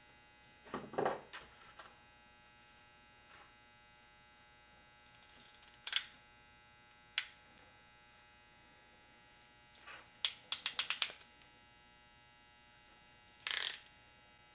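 Ratcheting crimping tool crimping a blue insulated terminal onto a wire. First handling rustle, then single sharp clicks, then a quick run of about seven ratchet clicks a little over ten seconds in, and a brief louder snap near the end. A faint steady mains hum runs under it.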